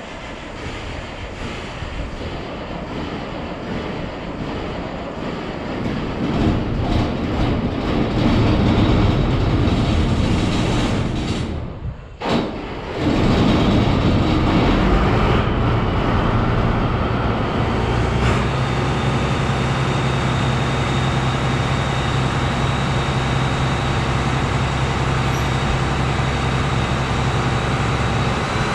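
Heavy diesel engine of a New Holland TR98 combine running. It builds up over the first several seconds, drops out briefly about twelve seconds in, then picks back up and settles into a steady run from about eighteen seconds on.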